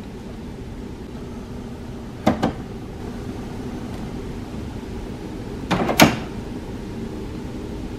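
HP DeskJet 4100-series inkjet printer going through its factory reset, with two short clusters of mechanical clacks from inside it, about two seconds in and a louder one about six seconds in, over a steady low hum.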